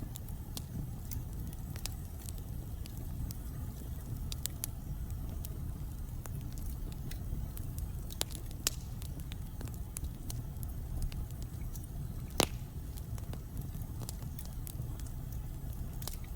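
Wood fire burning in a fireplace: logs crackling with scattered sharp pops over a low steady rumble, one louder pop about twelve seconds in.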